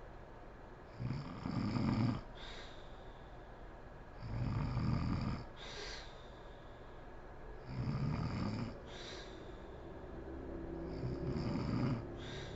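A woman snoring in her sleep: four snores about three seconds apart, each a low snore followed by a short, breathy puff of air.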